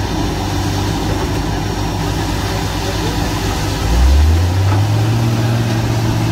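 Engine of a borewell drilling rig running steadily. About four seconds in it speeds up to a higher, louder pitch and holds there.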